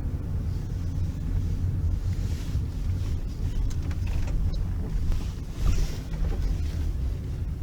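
Toyota V6 car driving, a steady low engine and road rumble heard from inside the cabin, with a few light clicks about halfway through.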